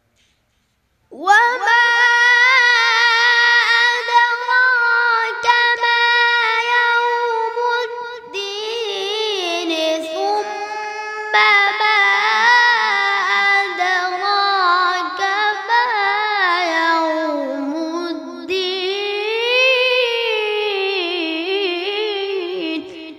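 A young boy reciting the Quran in the melodic tilawat style: a high child's voice comes in about a second in and holds long, ornamented notes, with a few short breaks, the melody winding slowly downward toward the end.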